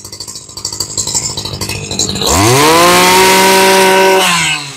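Small two-stroke Makita brush cutter engine idling roughly, then revved up to full throttle about two seconds in. It holds high revs for about two seconds and drops back toward idle near the end.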